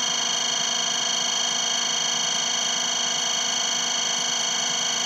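Steady background hum made of several even, high tones, with no hits or voices.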